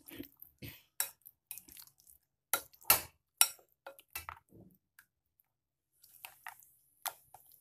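A steel spoon stirring chicken in a thick yogurt-and-spice marinade in a glass bowl: irregular clinks and taps of the spoon against the glass.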